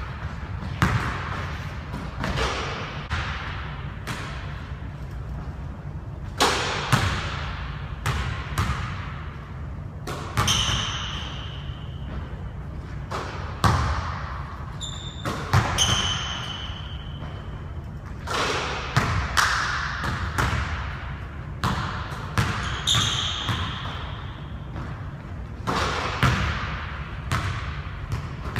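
A basketball bouncing and thudding on a hardwood gym floor at irregular intervals, each hit echoing in the large hall, with a few short high squeaks from sneakers on the court.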